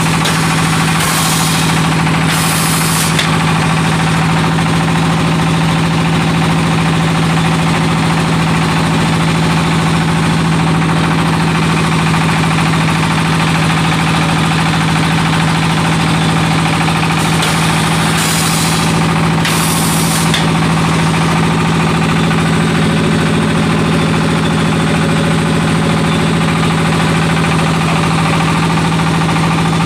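Automatic clay brick extruding machine running steadily under its engine drive, a constant loud mechanical hum and rattle. Short hisses come twice near the start and twice again about two-thirds of the way through.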